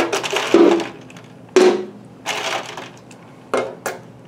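Sealed rectangular metal can buckling inward as the water vapour inside condenses and outside air pressure crushes it. It gives a series of sudden sharp metallic pops and crinkles, about six over four seconds, some with a brief ringing.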